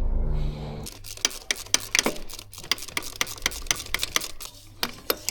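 A steady hum cuts off about a second in. It is followed by a run of sharp metallic clicks and taps from hand-tool work on the car, a few a second and irregular.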